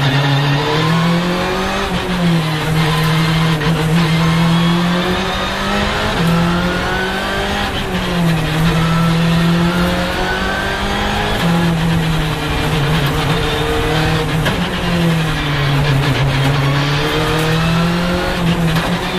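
In-cabin sound of a Skoda Fabia R5 rally car's turbocharged 1.6-litre four-cylinder engine driven hard, its pitch climbing and dropping again and again as it accelerates through the gears and lifts for corners.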